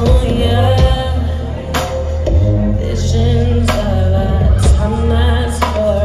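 Live amplified music: a woman singing into a microphone over a beat with heavy bass and a sharp snare or clap hit about once a second.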